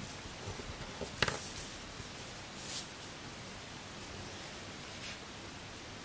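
A one euro cent coin being turned over by fingers and set down on a flat surface: a few light taps and rustles in the first second and a half, the sharpest about a second in, then a short scuff just under three seconds in, all over a steady hiss.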